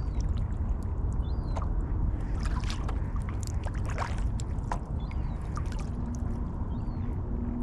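Kayak paddle strokes splashing and dripping at an irregular pace, over steady wind rumble on the bow-mounted microphone.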